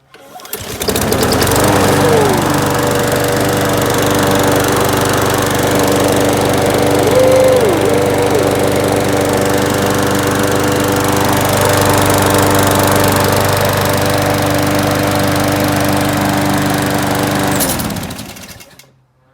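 Gas walk-behind lawn mower engine pull-started on its test run after a repair. It catches almost at once, runs steadily for about seventeen seconds, then is shut off and winds down.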